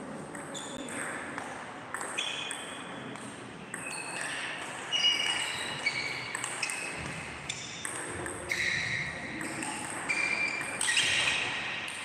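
Table tennis rally: the ball clicks back and forth off paddles and table in a quick, irregular series of sharp hits, each with a short ringing ping, echoing in a large hall.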